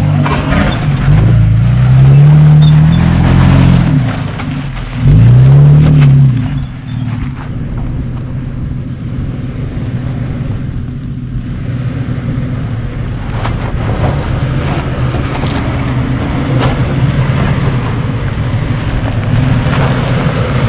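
Two-wheel-drive pickup truck's engine revving hard twice, the pitch rising and falling, as its rear wheels spin in loose dirt climbing a rocky rut. The second rev is shorter. After that a vehicle engine runs more steadily at lower revs.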